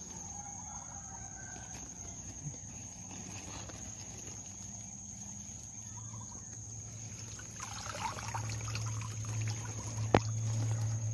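Rustling and clattering of a wire-mesh fish trap being lifted out of ditch water and handled into a woven plastic sack, picking up from about seven or eight seconds in, with one sharp knock near the end. A steady high whine runs underneath.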